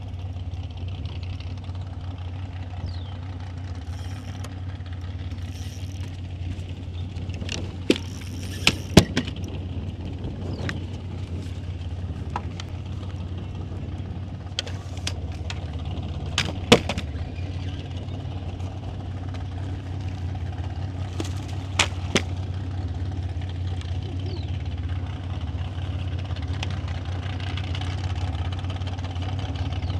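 A steady low hum on a bass boat, with a few sharp knocks and clicks from gear on the deck: a cluster about eight to nine seconds in, another near seventeen seconds, and a couple near twenty-two seconds.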